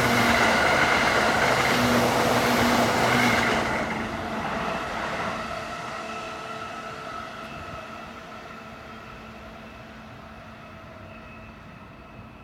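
JR Chuo Line electric train running past close by, loud for the first few seconds and then fading steadily as it moves away, with a faint steady hum left at the end.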